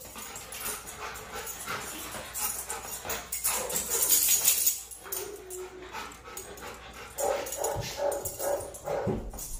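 Labrador retriever whining, with several short pitched whines in the second half.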